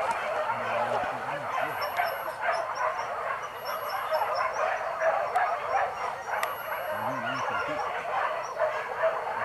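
A pack of hunting dogs barking and yelping together in a continuous, overlapping chorus.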